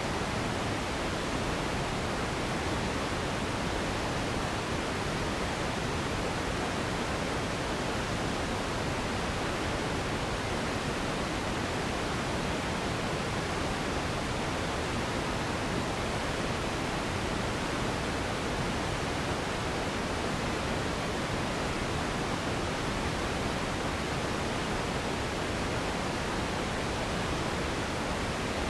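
Steady synthetic noise for sleep: an even, unchanging hiss spread across low and high pitches, with no events or changes in level.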